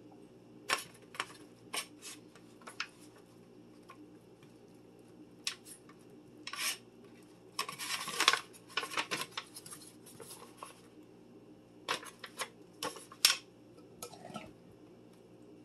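Thin aluminium foil pan crinkling and clicking as tortillas are rolled and laid into it, with a dense stretch of crackling about eight seconds in and a few sharp clicks near the end, over a faint steady hum.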